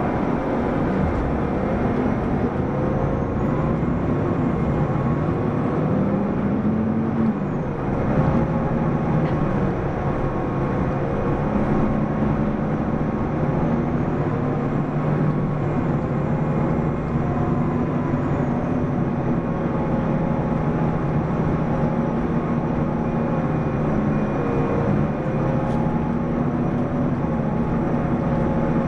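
Mitsubishi Fuso PDG-AA273KAN city bus's diesel engine and drivetrain running while the bus is underway, the engine note rising and falling as it changes speed, with a change in pitch about seven seconds in.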